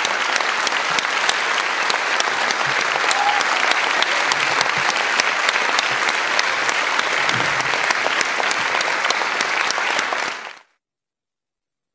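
A large audience applauding steadily, fading out quickly about ten seconds in.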